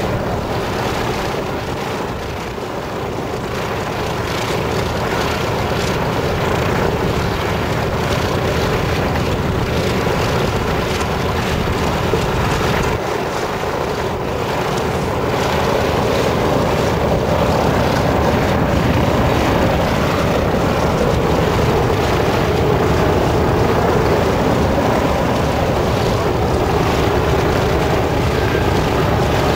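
Consolidated PBY Catalina's two Pratt & Whitney R-1830 Twin Wasp radial engines running with the aircraft standing still, a steady propeller and engine drone after start-up. It grows somewhat louder in the second half.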